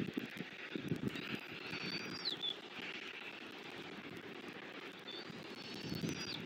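Irregular low rustling and crackling in a bald eagle nest of sticks and grass as the adult tears food and feeds its chick. Twice, a small bird in the background gives a thin, high whistled call that ends in a quick drop.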